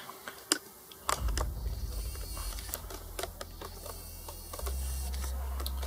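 Scattered light clicks and taps, with a low rumble of handling noise that starts about a second in and gets louder near the end.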